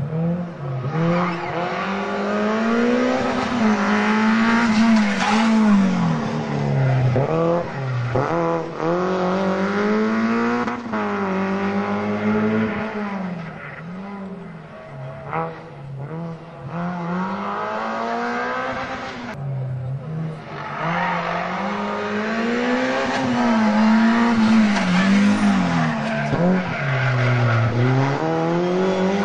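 Rally car engines, Renault Clios among them, driven hard: the engine note climbs steeply, drops at each gear change or lift for a corner, and climbs again, over and over as several cars pass in turn. It fades somewhat in the middle and comes back louder near the end.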